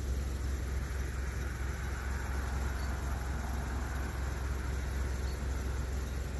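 Steady outdoor background noise: a constant low rumble with an even hiss over it, swelling faintly in the middle.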